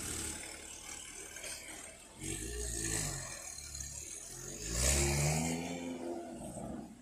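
Porsche 911 Carrera's flat-six through an iPE aftermarket exhaust, pulling away with two rising surges of throttle, about two and five seconds in, the second the louder.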